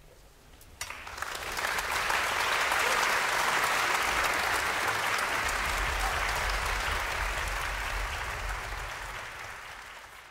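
Audience applause: clapping breaks out suddenly about a second in after near silence, quickly swells to a full, steady ovation, and begins to fade near the end.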